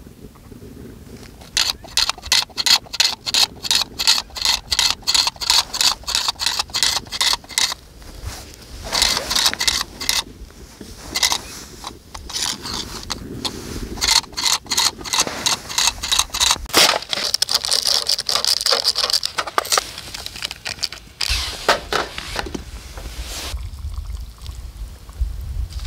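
A small hand tool scraping and chipping at the surface of pond ice in quick even strokes, about three a second, then in slower, irregular strokes and scrapes. Near the end, hot water is poured from a kettle into a paper cup.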